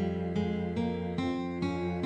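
Film score music: a slow melody of pitched notes, each struck sharply and fading, about two and a half a second.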